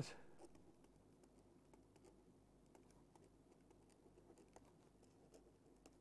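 Near silence with faint, scattered ticks and scratches of a stylus writing on a tablet PC screen.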